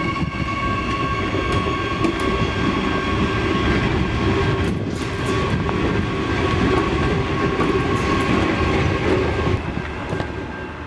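Adelaide Metro 4000 class electric multiple unit passing close by: wheels rumbling on the rails under a steady high electric whine, with a few clicks. The sound falls away near the end as the rear of the train moves off.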